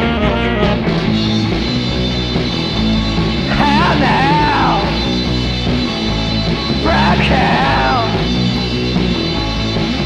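Rock band playing an instrumental passage, with a lead line that swoops up and down in pitch twice, around four and seven seconds in.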